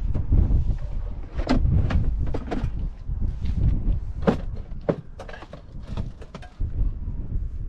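Wind rumbling on the microphone, with a string of sharp knocks and clicks, the loudest about four and a half seconds in.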